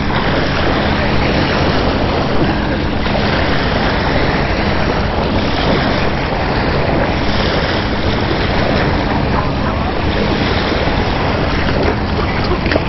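Steady wind buffeting the microphone over small waves lapping at the shoreline, with a faint steady low hum underneath.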